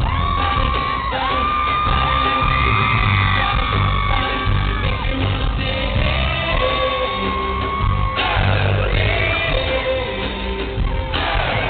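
Live pop concert heard from the audience in a large hall: a male singer over a band with a heavy bass beat, with yells and high screams from the crowd.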